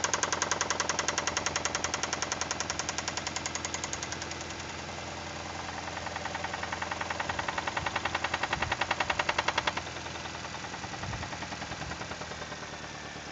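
Toyota 2E 1.3-litre four-cylinder petrol engine running with a fast, even metallic knock. The knock is loud, eases, builds again as the engine speeds up, then drops sharply near the end to a fainter knock as the engine settles. It appeared after a sustained high-speed run, and its cause is unknown.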